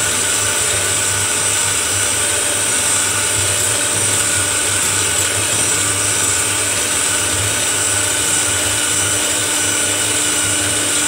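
Electric hand mixer running steadily, its twin beaters whisking instant coffee, sugar and icy water in a glass bowl to whip it into a coffee cream.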